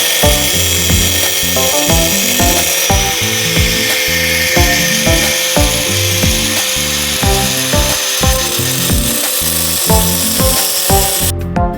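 A handheld power tool grinding or cutting, likely on the car's metal muffler: a steady loud abrasive hiss with a faint whine. It stops abruptly about eleven seconds in. Background music with a steady beat plays throughout.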